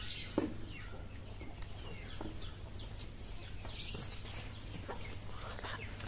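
Chickens clucking faintly in the background, a scatter of short falling calls.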